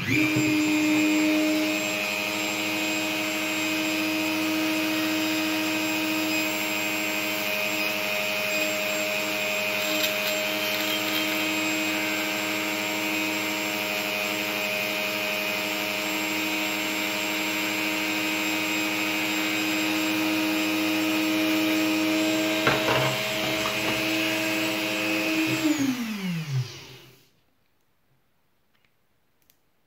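Dremel rotary tool running at a steady speed with a constant motor whine, spinning a lock pin clamped in its chuck. About 26 s in it is switched off and spins down, its pitch falling away.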